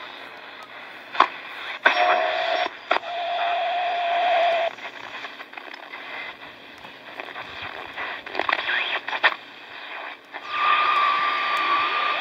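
1970 Hitachi Hi-Phonic WH-888R portable radio being tuned across the shortwave band. Its speaker gives hiss and crackle of static with scattered clicks. A steady lower whistle comes in about two seconds in, and a higher whistle near the end, as the dial crosses carriers.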